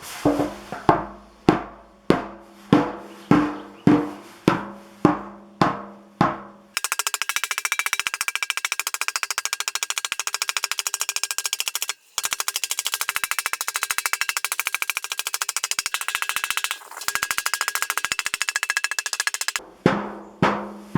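Hammer blows on a copper fire pit bowl, each strike leaving the bowl ringing at a few steady pitches, about two blows a second. After about seven seconds they give way to a very fast, continuous run of blows lasting some thirteen seconds, before slower ringing strikes resume near the end. This is dents being worked out of the soft copper.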